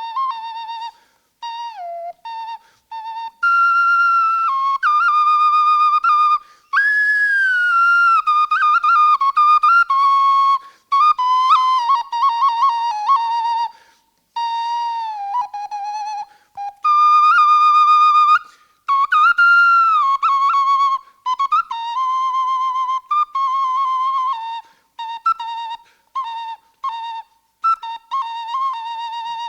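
Solo ocarina playing a melody in short phrases with brief breaks, with vibrato on the held notes.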